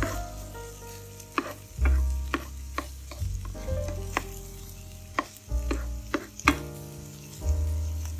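Food sizzling in a frying pan while a utensil stirs it, with irregular scraping clicks, over background music with deep bass notes.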